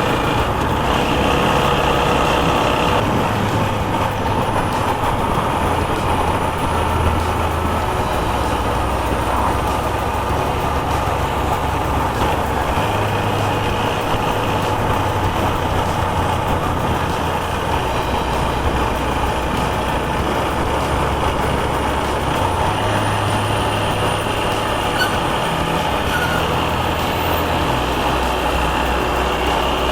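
TVS Apache RTR 160 4V motorcycle's single-cylinder engine running on the move, its low note stepping up and down every few seconds with the throttle, under a steady rush of wind and road noise.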